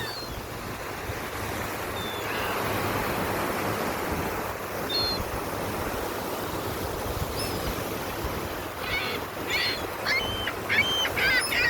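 Gulls calling over steady surf: a few scattered short cries, then from about nine seconds in a rapid run of repeated cries, roughly two a second, from gulls begging for bread.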